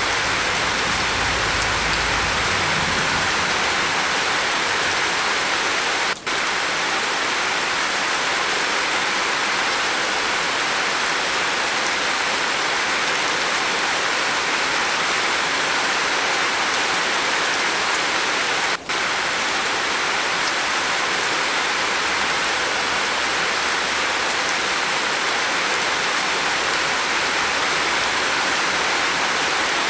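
Steady rain falling on a roof, an even hiss with two very brief dropouts, about six and nineteen seconds in.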